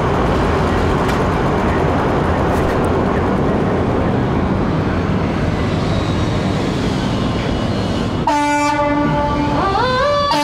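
A steady low rumble, then about eight seconds in a fire engine's air horn sounds a steady chord, and its siren begins to rise near the end.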